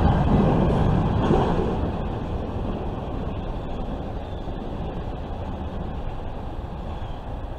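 Wheel and rail noise of a double-stack intermodal freight train as its last well car rolls past and away, fading steadily to a faint rumble.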